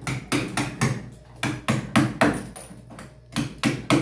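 Hammer blows on an iced-up refrigerator: a string of about nine sharp, irregular knocks with a short ring, some in quick pairs, pausing for about a second before the last few. The freezer is iced up so badly that the door sticks and has to be knocked free; it needs defrosting again.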